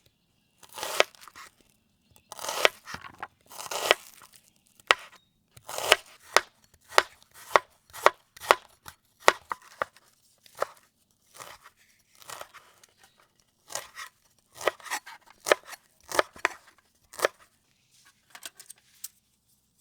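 Knife cutting onions and garlic on a cutting board: a series of uneven cuts and chops, some drawn-out slicing strokes, quicker chops in the middle.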